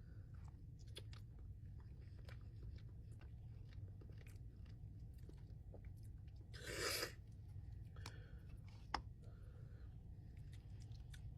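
Close-up chewing of crispy fried chicken: soft chewing with scattered crisp clicks of breading, one louder crunchy bite a little past halfway, and a sharp snap about three-quarters through.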